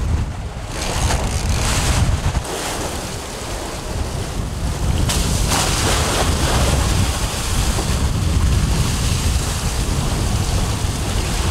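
Rough-sea waves and spray rushing along a sailing trimaran's hull, surging louder now and then, with heavy wind buffeting the microphone.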